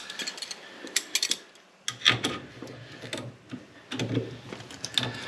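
Irregular metallic clicks and knocks of a central heating pump's isolation valve being cranked fully shut with a hand tool. The pump valves are not holding and will not stop the water.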